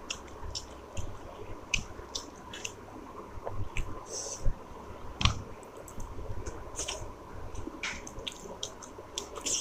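Close-miked chewing and mouth sounds of a person eating chicken curry meat, with short clicks at irregular intervals over a low hum.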